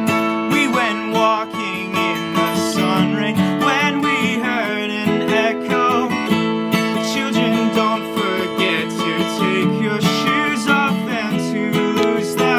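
Acoustic guitar strummed and picked in a steady song accompaniment, with a man singing over it.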